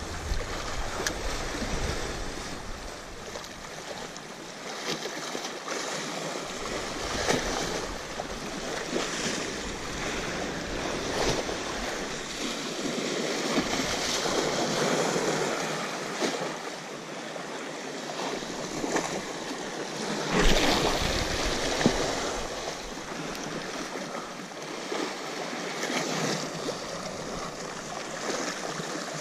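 Sea waves washing and breaking against rocks, a continuous rush that swells and ebbs every few seconds, with the biggest surge about two-thirds of the way through. Wind buffets the microphone now and then.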